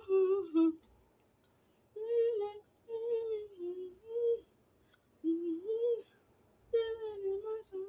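A person humming a wordless tune in short melodic phrases of about a second each, with short pauses between them.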